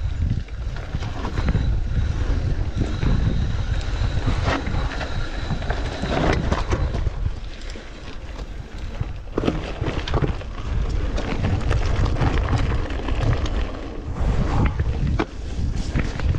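Mountain bike riding over rough trail with heavy wind buffeting on the microphone, the tyres and frame rattling and knocking over rocks and bumps.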